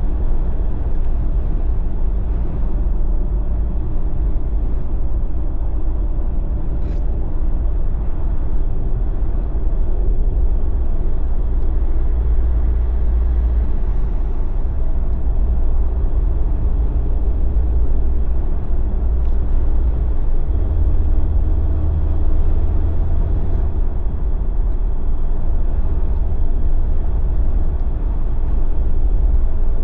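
Jeep driving along, a steady low rumble of engine and tyres on the road with no sudden events.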